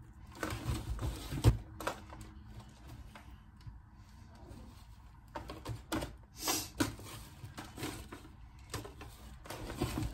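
Hands crumbling cornbread in a disposable aluminum foil pan: irregular crinkling and crackling of the foil with soft rustling of the crumbs, in clusters, and one louder thump about a second and a half in.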